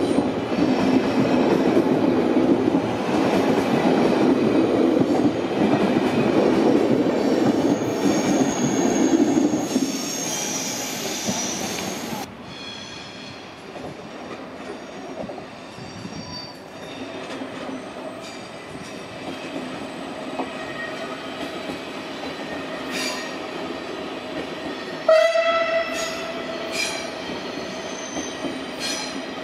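SBB EW IV passenger coaches rolling close past a platform: a loud rumble with a high wheel squeal, ending suddenly about twelve seconds in. Then, quieter, an arriving SBB push-pull InterRegio train rolls in with faint wheel squeals, and about 25 seconds in a short loud horn tone sounds and fades.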